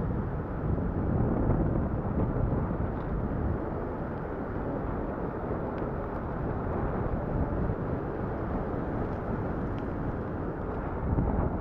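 Wind rushing over a GoPro's microphone on a moving bicycle: a steady low rumble with road noise underneath.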